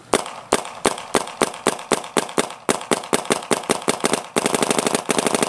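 Vicious Geo 2 paintball marker with a Unitech barrel dry-firing, with no paint loaded: a string of sharp shots about four a second, then for the last second or so a fast burst of about a dozen shots a second.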